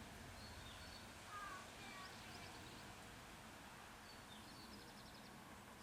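Faint outdoor background noise with a few short bird chirps and high trills, a cluster about a second and a half in and another near the end.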